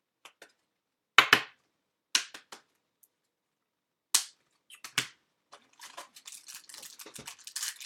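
Sharp knocks and clicks of card packs and cases being handled on a table, a few strokes spread over the first five seconds, then a steady run of crinkling from the packaging being opened.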